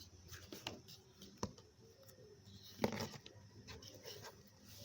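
Faint rustling and small clicks and taps of a paper strip being glued and rolled up by hand, with a sharper tap about a second and a half in and another near three seconds.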